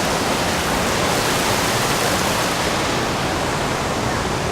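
Loud, steady rush of water from cascades in a rocky gorge stream.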